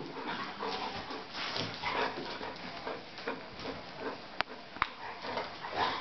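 Golden retriever panting and whimpering softly in irregular short breaths, with two sharp clicks about two-thirds of the way through.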